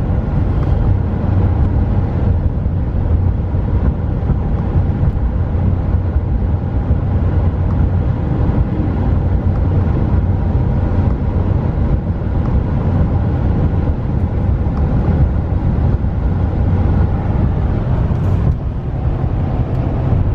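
Steady low drone of road and engine noise inside the cab of a 2015 Dodge Ram 1500 with the 5.7-litre Hemi V8 while it is being driven.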